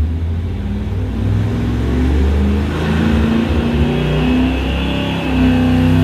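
V8 race engine running on an engine dynamometer, its pitch stepping up and down. It is heard through the dyno cell's window.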